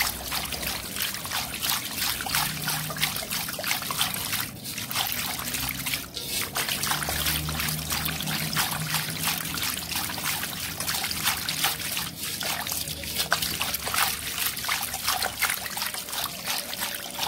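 Warm water swishing in a stainless steel bowl as sugar and salt are stirred into it to dissolve, a continuous, rapid swishing.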